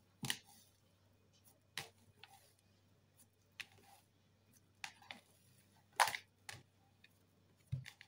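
Hands stretching and folding sticky whole-grain sourdough dough in a bowl: scattered soft clicks and slaps, about half a dozen, the loudest about six seconds in.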